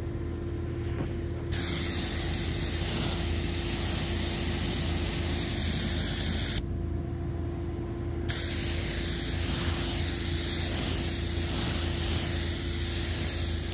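Water jet from a Canpump 1500 psi electric pressure washer spraying onto a car's painted hood: a broad hiss that starts about a second and a half in, stops for about two seconds midway as the trigger is let go, then starts again. A steady low hum and a faint steady tone run underneath.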